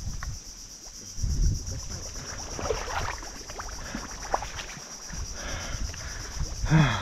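Boots squelching through wet riverbank mud and a mesh prawn trap net being handled, with irregular soft thumps and rustles, loudest about a second in, over a steady high insect drone. A brief vocal grunt falling in pitch near the end.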